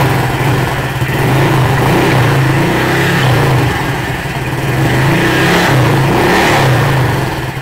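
Honda Click V2 scooter's single-cylinder engine revved hard through an aftermarket MT8 racing exhaust pipe, held at high revs for about six seconds and dropping back near the end.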